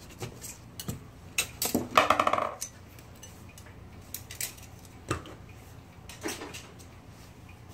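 Scattered metallic clicks and clinks of metal typewriter parts being handled during disassembly, with a brief ringing clink about two seconds in.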